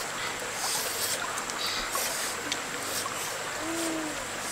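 A low hooting call near the end, rising slightly then falling away, with a fainter, shorter one about halfway through, over a steady background hiss.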